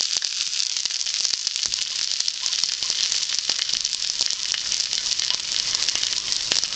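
Burning Fire Patty fire starter sizzling, a steady hiss thick with small crackles and pops, as plain water is put on it without putting it out.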